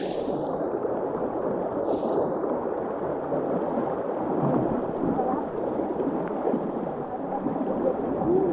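Shallow river water gurgling and rushing over stones, with splashing from feet wading through it.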